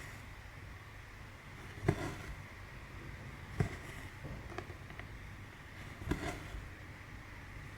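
Hand cross-stitching: short soft taps and rustles as the needle goes through the fabric and the thread is drawn through, about every two seconds, over a steady low hum.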